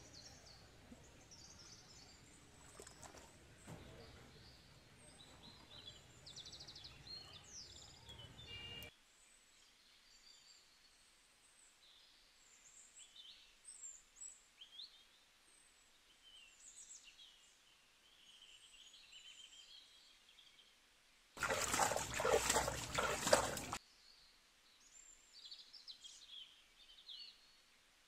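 Small birds chirping on and off over the wet scraping and squelching of hands digging into a muddy bank hole. The low background noise cuts off abruptly about nine seconds in, and about two-thirds of the way through a loud, noisy burst lasts about two seconds.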